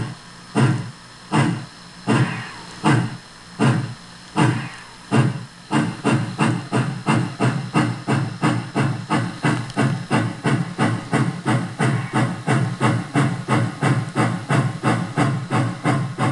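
Digital steam-locomotive sound from a Soundtraxx Micro TSU-750 model-railroad sound decoder, standing in for an AC-12 articulated steam engine: exhaust chuffs with hiss between them, played through a speaker under the layout. The chuffs come slowly at first, then quicken to about three a second some five seconds in, as the locomotive picks up speed.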